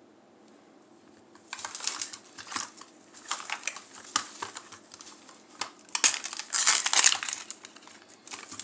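Crinkly plastic wrapping from a toy capsule being handled and torn open by hand, starting about a second and a half in and coming in irregular crackling bursts, loudest a little after the middle.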